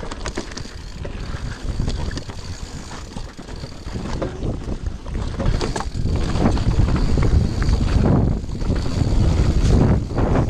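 Mountain bike descending a dirt forest trail at speed: wind rushing over the microphone and tyre rumble, with scattered knocks and rattles from the bike over bumps, getting louder about six seconds in.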